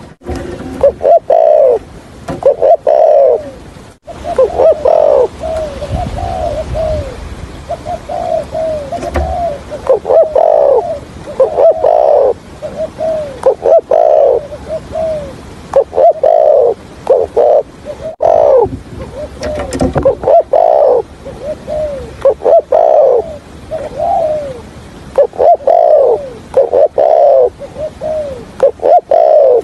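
Spotted dove cooing over and over: runs of short, arched coo notes in quick succession with brief pauses between phrases.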